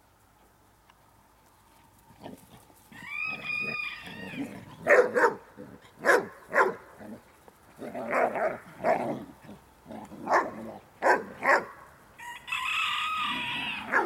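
A rooster crows about three seconds in and again near the end. In between, young dogs play-fighting give a string of short, sharp, loud barks.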